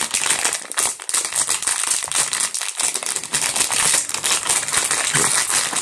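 Blind-bag toy packet crinkling and rustling without a break as it is handled and opened.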